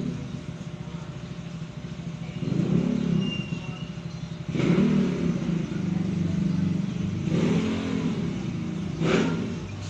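A motor vehicle engine running, its revs rising and falling several times, with two short rushing noises about halfway through and near the end.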